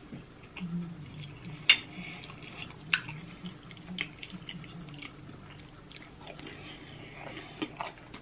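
Close-miked chewing and mouth smacking while eating shrimp Alfredo pasta, with several sharp smacks, the loudest about two and three seconds in.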